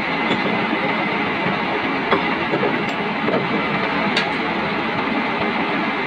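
Diesel engine running steadily at idle, with a couple of light clicks about two and four seconds in.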